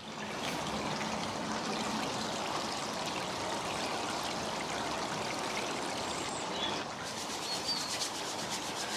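Shallow water running and trickling over rocks, a steady rushing splash.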